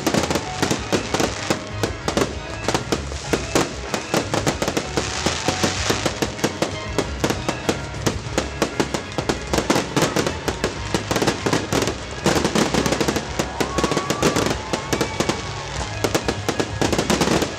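A fireworks display in full swing: a dense, continuous run of bangs and crackling bursts, many a second, with music playing underneath.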